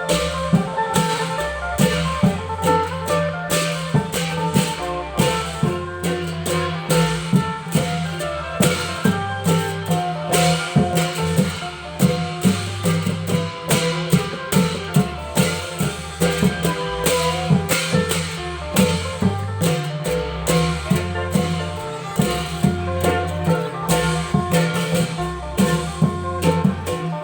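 Thai klong yao long-drum band music: fast, steady drum strokes under a melody with a bass line that changes note every second or so.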